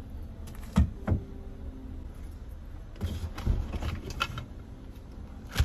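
Knocks and clatter of packed flat-pack items being loaded onto a car's carpeted cargo floor: two knocks about a second in, a run of clatter around three to four seconds, and a sharp knock near the end.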